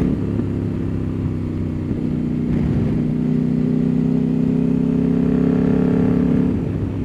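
CF Moto 800MT Explore's parallel-twin engine, breathing through a decat link pipe fitted in place of the catalytic converter, under way on the road. Its note climbs steadily as the bike pulls, then breaks off briefly near the end before picking up again.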